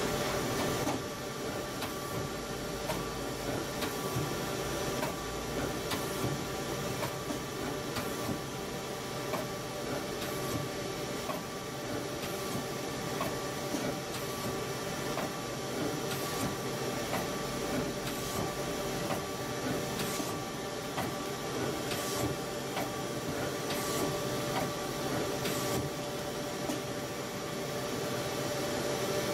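Mazak Multiplex 4200 CNC lathe running: a steady machine hum with a few held whining tones and frequent light clicks and ticks throughout.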